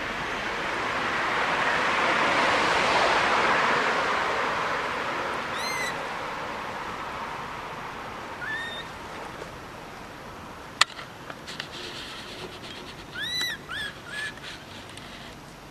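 Baby long-tailed macaque giving short, high, arched squeaks: one about six seconds in, one a couple of seconds later, and a quick run of three near the end. Before them a rushing noise swells and fades, and a single sharp click comes between the calls.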